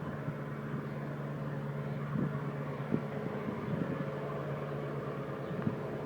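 Heavy machine vehicle engine running with a steady hum, broken by a few short low thumps.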